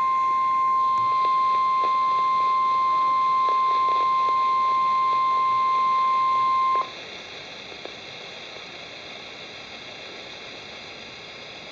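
NOAA Weather Radio warning alarm tone: a steady single beep that cuts off sharply about seven seconds in. It signals that a warning broadcast follows. After it comes faint radio hiss.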